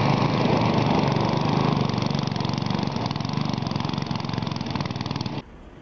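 Riding lawn mower engine running steadily, cutting off abruptly near the end.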